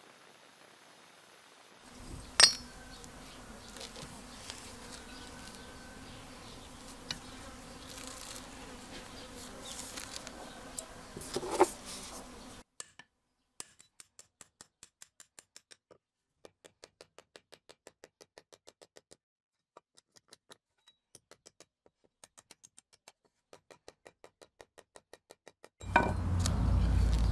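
Small electric buffing-wheel motor humming steadily, with a couple of sharp clicks as a brass spoon blank is pressed to the spinning buff. Then a steady faint ticking, about three a second, and near the end a sudden loud low rumble.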